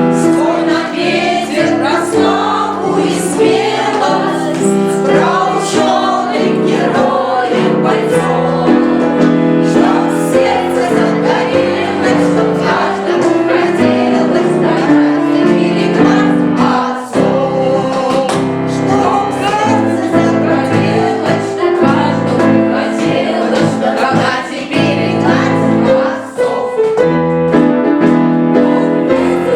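Children's choir singing in unison with piano accompaniment.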